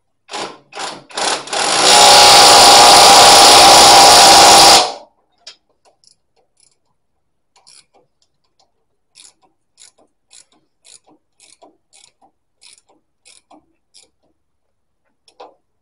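Ratchet wrench clicking in quick, even strokes, about three clicks a second, as the top nut of a front shock absorber is tightened down onto its rubber bushes. Before it come three short bursts of noise, then about three seconds of loud steady noise that cuts off sharply.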